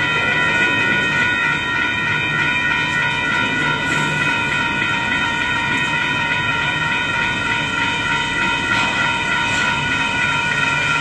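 Union Pacific intermodal freight train rolling slowly past: a steady rumble of wheels on rail with light clatter. Over it runs a continuous high-pitched squeal made of several steady tones.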